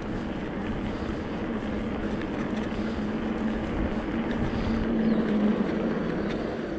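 Rockrider E-ST 900 electric mountain bike on the move: a steady low motor hum over the rush of wind on the microphone and tyre noise, with small knocks from the bike over rough ground. The hum is strongest about five seconds in.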